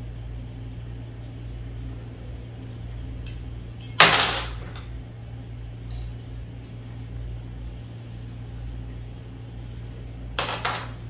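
Handling of slingshot parts: one sharp, loud clack about four seconds in, then two lighter clicks in quick succession near the end, over a steady low electrical hum.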